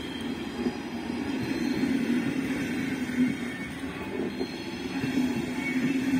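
Passenger coaches of a train rolling past on the track, a steady rumble of wheels on rails with faint wheel squeal now and then.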